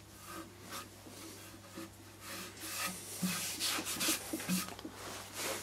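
A hand rubbing and brushing over the turned surface of a honey locust wood bowl on a lathe: a series of soft swishes that get stronger about halfway through, over a faint steady low hum.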